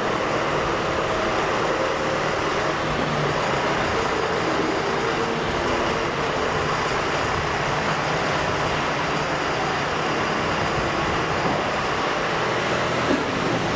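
John Deere loader tractor's 4.5-litre four-cylinder diesel engine running steadily as the tractor drives slowly along.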